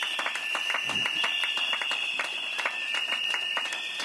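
Crowd of striking rail workers applauding, with dense, irregular clapping, while long, shrill whistle blasts sound over it, overlapping and restarting.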